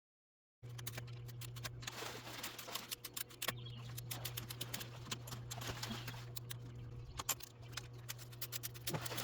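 Rapid, irregular small clicks and rattles of furniture-assembly hardware, hand tools working bolts and nuts, over a steady low hum. The sound cuts in just under a second in.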